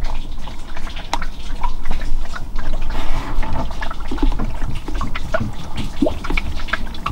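Water poured from a plastic bottle into a car's scuttle drain channel, splashing irregularly. It is a leak test of a fresh silicone repair, checking whether water gets through into the footwell.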